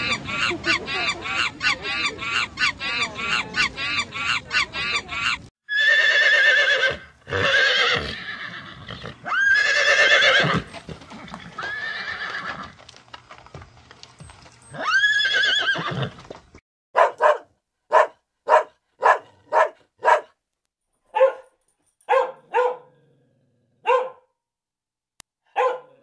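A white-faced capuchin monkey gives rapid, repeated calls, several a second. About five and a half seconds in, a horse neighs about five times in long whinnies. From about seventeen seconds on, a dog barks a dozen short, sharp barks.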